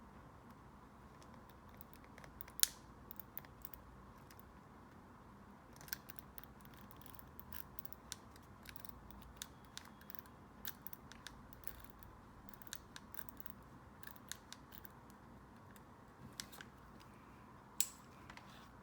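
Sparse light clicks and taps of journaling stationery being handled, with two sharper clicks: one between two and three seconds in and one near the end.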